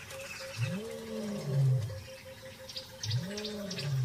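Lion roaring: two long, low calls that rise and then fall in pitch, a couple of seconds apart, with faint bird chirps over them.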